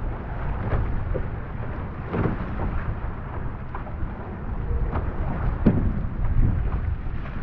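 Wind blowing hard on the microphone, a steady low rumble, with water rushing and splashing past an outrigger canoe's hull and the irregular splash of paddle strokes in choppy water. The splashes come about every second.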